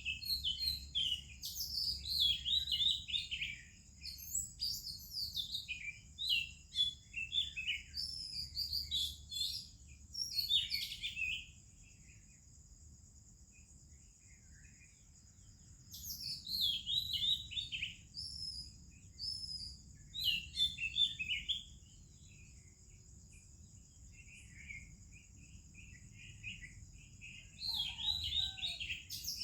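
Oriental magpie-robin singing in runs of quick, varied whistles and warbles, falling silent for a few seconds about halfway through before starting again, over a steady high-pitched hum.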